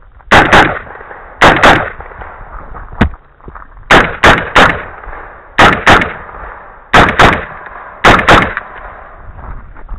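Rifle shots on a firing range: about fourteen sharp, loud cracks fired in quick pairs roughly a third of a second apart, with one single shot and one group of three. Each crack leaves a short echoing tail.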